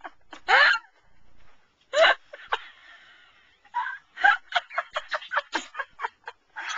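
A man crying out and spluttering, twice in sweeping vocal bursts, after gulping a foul-tasting drink, then a quick run of laughter from about four seconds in.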